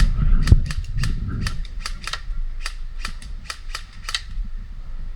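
Airsoft guns firing a rapid, irregular string of sharp snapping shots, about fifteen in all, which stop about four seconds in. Wind and handling rumble on the microphone underneath.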